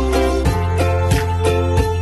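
Background music: a steady run of evenly spaced notes over a held bass line.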